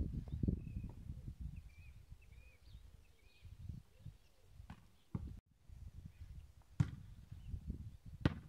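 About four sharp thuds from a ball being played with outdoors, the loudest two coming in the second half. A low rumble at the start fades out, and small birds chirp faintly in the first few seconds.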